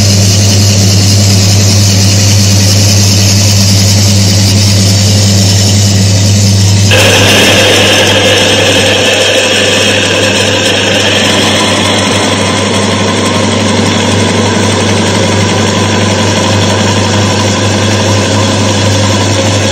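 Electric motor of a Timken-type friction test machine running with a steady hum. About seven seconds in, a louder, harsher high-pitched grinding sets in as the test block is loaded against the spinning shaft, metal rubbing on metal through the additive-treated oil.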